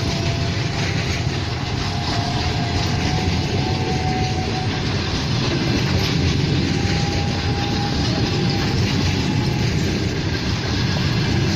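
Passenger train rolling past: a steady rumble and clatter of the coaches' wheels on the rails, with faint high squealing tones that come and go.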